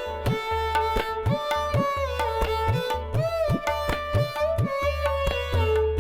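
Background music: a steady hand-drum rhythm, its low strokes bending upward in pitch, under a sustained stringed melody and a low drone.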